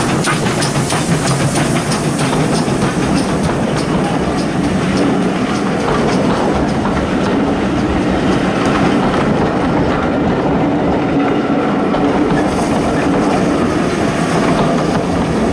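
GWR pannier tank steam locomotive 1369 passes close with its train of coaches rolling by. The wheels click over the rail joints, with regular ticks through the first half giving way to a steadier rolling rumble.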